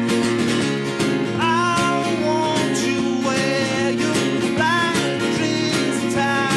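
Acoustic guitar strummed steadily, with a man singing a slow melody over it, coming in about a second and a half in.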